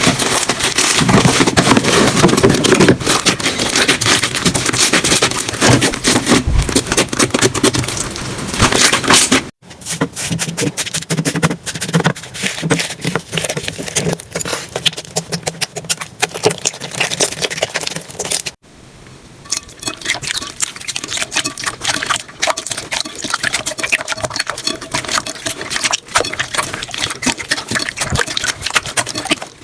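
Slime being squished and worked, giving dense, rapid crackling and popping. It comes in three separate clips that cut off suddenly, and the first clip is the loudest.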